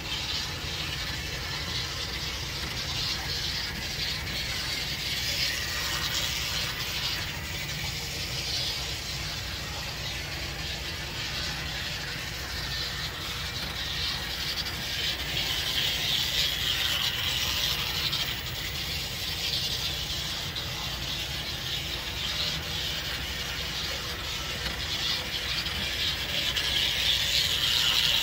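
Gem model diesel switcher running around a track loop: its small electric motor and gears whirr, with wheels clattering on the rails. The sound swells and fades as it circles, and is loudest near the end as it passes close by.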